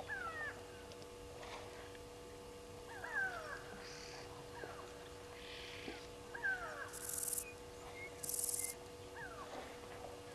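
A bird's short whistled calls, each sliding quickly down in pitch, repeated every second or two. Two brief high hissing bursts come about seven and eight seconds in, over a faint steady hum.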